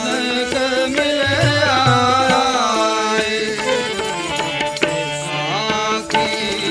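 Sikh kirtan: a harmonium sustains chords under a male voice singing a slow, ornamented melodic line with gliding turns, while a tabla keeps time with deep bass strokes.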